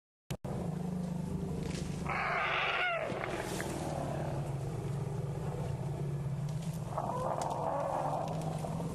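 African elephants in a herd vocalizing: a loud pitched call that slides down in pitch about two seconds in, and a second, rougher call about seven seconds in, over a steady low hum.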